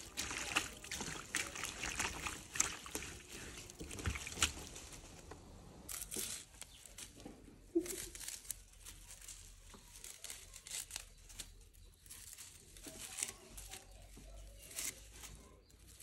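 Fresh moringa leaves and stems rustling and crackling as hands strip the leaves off into a plastic tray, in irregular bursts of small crackles.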